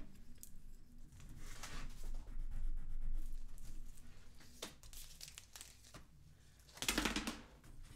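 Tissue pattern paper and dotted pattern paper rustling and crinkling as they are handled and rulers are moved across them. The rustling is strongest from about one and a half to three seconds in, with a short, louder crinkle about seven seconds in.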